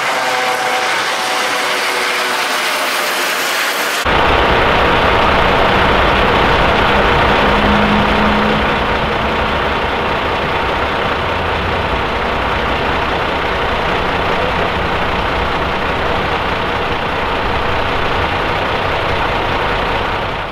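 A red-and-white rescue helicopter's turbine and rotors whine steadily for about four seconds. An abrupt cut follows to a steady, low rumble of idling engines from stopped lorries and fire-brigade vans.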